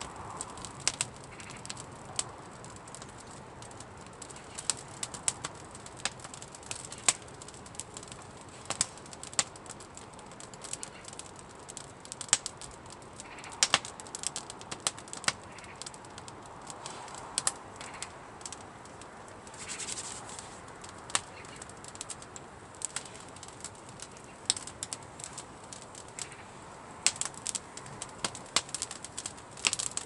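Wood campfire crackling, with irregular sharp pops and snaps, some much louder than others.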